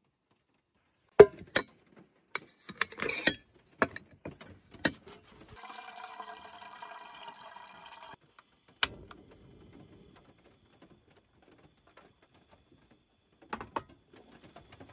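Water from a small faucet runs into a cooking pot for about two and a half seconds, with a steady rush and a ringing note from the filling pot. Sharp clicks and knocks of the pot and kettle being handled come before it and again near the end.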